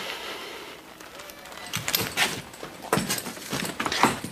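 Heavy boot footsteps on a wooden floor, a string of irregular knocking steps starting about two seconds in.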